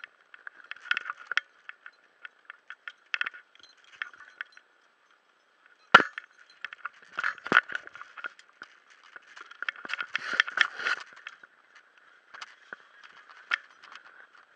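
Handling noise from scuba gear: a buoyancy compensator and its regulator hoses being adjusted, with irregular clicks, knocks and rubbing. A sharp knock comes about six seconds in, and a busier patch of clatter near the eleven-second mark.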